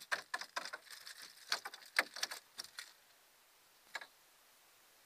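A landed white perch flopping on a boat's floor with a lure still hooked in its mouth: a quick, irregular run of slaps and taps for about three seconds, then a single tap about a second later.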